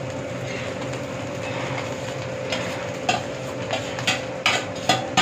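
A metal spatula scraping and knocking against a steel frying pan about seven times in the second half as rice is spread over the vegetables, over a steady kitchen hum.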